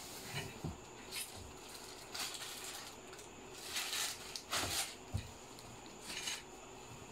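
Bubble wrap and plastic packaging rustling and crinkling in several short bursts as parts are pulled out of a cardboard box, with a couple of soft knocks.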